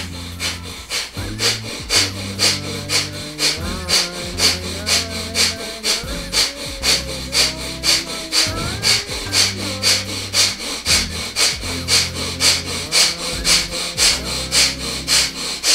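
Kapalabhati (breath of fire): a man's rapid, forceful exhalations driven by the diaphragm, about two and a half a second in a steady rhythm, each inhale coming back passively. Soft background music plays underneath.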